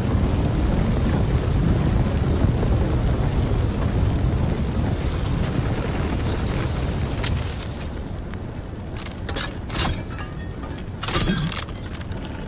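FLAM-66 Torcher flamethrower sound effect: a continuous stream of flame firing for about seven seconds, then dying down to scattered crackles and pops.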